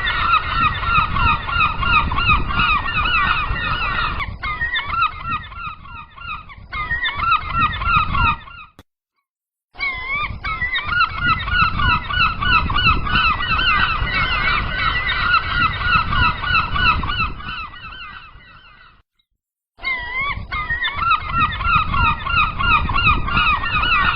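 A large flock of gulls calling together, a dense mass of overlapping, repeated calls over a low rumble. The calling thins out and cuts to silence twice for about a second, then comes back at full strength.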